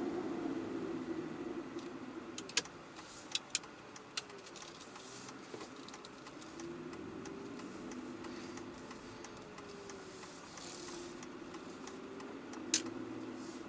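Car engine heard from inside the cabin at low speed, its pitch sinking and rising again as the car slows and moves off. A few sharp clicks come about two to four seconds in, and a single click near the end.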